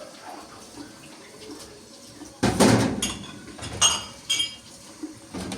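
Dishes and cutlery clattering: a loud clatter about halfway through, then three ringing clinks of crockery or metal.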